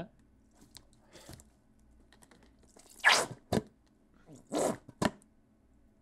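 Upside-down plastic squeeze bottle of ranch dressing being squeezed, spitting out short wet sputters of air and thin dressing. The loudest sputter comes about halfway through and another near the end, each followed by a sharp click. It sounds too smooth and liquidy to pass for a fart.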